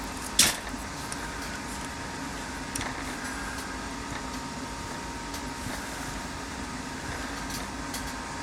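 Small parts clicking as a turn signal switch is fitted into a GM tilt/telescopic steering column: one sharp click about half a second in and a lighter one near three seconds, over a steady background hum.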